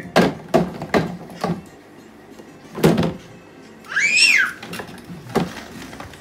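A baby in a plastic walker bangs a small metal cup against wooden furniture, making a series of sharp, uneven knocks. About four seconds in, a high squeal rises and then falls.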